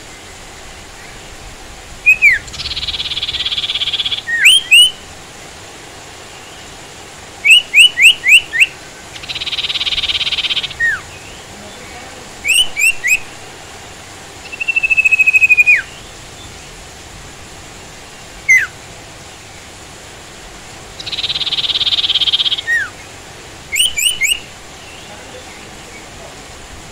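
Sirtu bird calling. It gives sharp downslurred whistled notes in quick groups of two to four, one long falling whistle about halfway through, and three raspy buzzing calls, each about a second and a half long. A steady hiss runs underneath.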